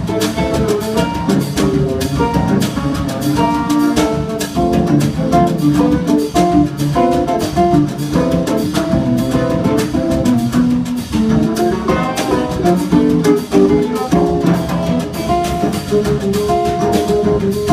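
Instrumental samba played live by a trio of cello, classical guitar and drum kit: a busy, quick melody over guitar chords and steady drum strokes.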